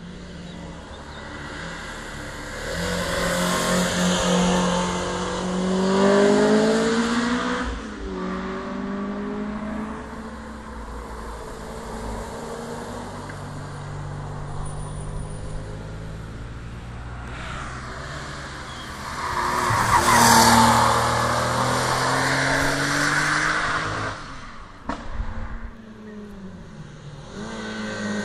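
Historic race cars accelerating hard uphill through a bend, their engine notes rising and dropping with each gear change. Two cars pass, the loudest moments about six and twenty seconds in.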